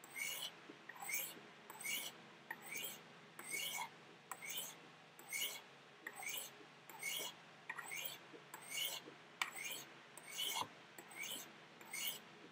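Buck TNT knife blade drawn in alternating light strokes down the corners of Spyderco Sharpmaker fine ceramic rods: a soft, hissing steel-on-ceramic scrape, a little more than one stroke a second.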